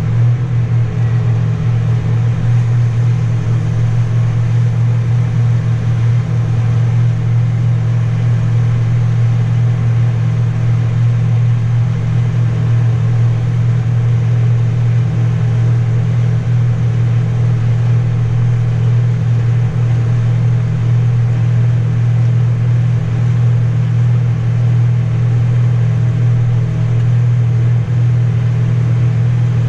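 A vehicle engine runs with a steady low drone while under way, holding an even pace throughout.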